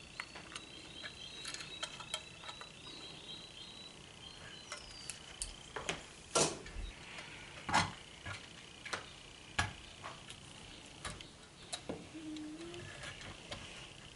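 Irregular clicks and knocks of metal deadbolt lock parts being handled and tightened into a door, a few louder knocks near the middle. Under them runs a faint steady high chirping, busiest in the first few seconds.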